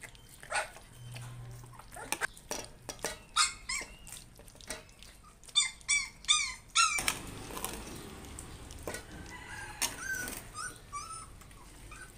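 Young puppies whimpering and squealing: many short, high-pitched cries in quick runs, with a few soft knocks between them.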